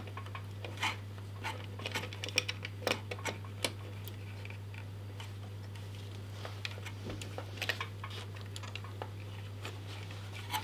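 Irregular small clicks and taps of a liquid CPU cooler's pump block and its mounting hardware being handled and fitted into place inside a PC case, over a steady low hum.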